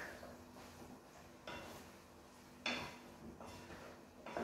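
Spatula scraping and knocking against a frying pan as meat is stirred: three short strokes about a second apart, over a steady faint hum.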